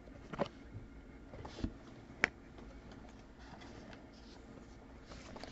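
Faint handling of trading cards: a few soft clicks and light rustles as cards are flipped through and set down. The sharpest tick comes a little past two seconds in.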